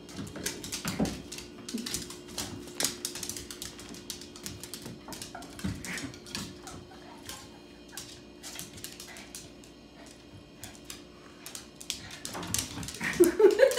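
A small dog and a cat sparring at a wooden kitchen chair: many sharp clicks and taps of claws and paws on the tiled floor and the chair, over a faint steady hum. Near the end the dog whines a few times, rising in pitch.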